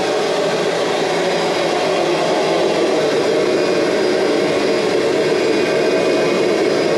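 Kirby Generation 3 upright vacuum's motor running steadily while the machine drives itself backwards on its Tech Drive self-propulsion. The owner thinks the adjustment yoke on the side of the Tech Drive is out of adjustment.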